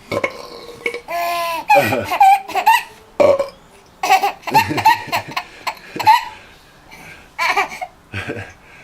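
A man's burp, then a baby laughing in several bursts of giggles.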